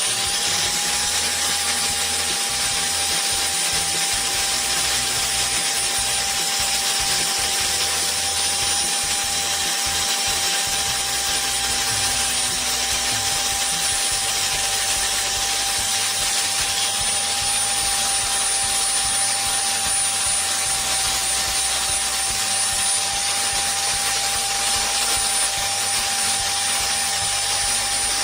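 Electric power tool running steadily at one speed: a constant whine over a hiss.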